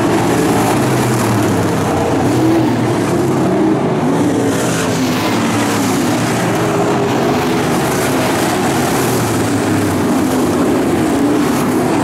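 Pro stock dirt track race cars' engines running at racing speed, several engine notes rising and falling as the cars lap the track.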